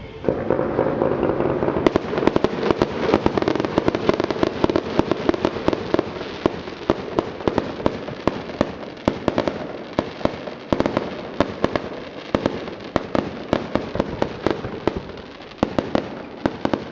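Fireworks finale: a dense, continuous barrage of aerial shell bursts and crackling reports, many bangs a second, starting abruptly just after the beginning.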